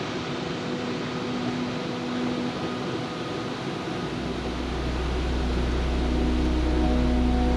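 Waterfall rushing steadily into a plunge pool, a constant roar of falling water. Steady sustained tones sit underneath, and a deep low hum comes in about halfway, as the sound slowly grows louder.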